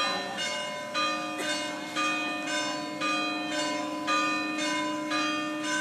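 Church bells striking a run of notes at different pitches, about two a second, each note ringing on into the next.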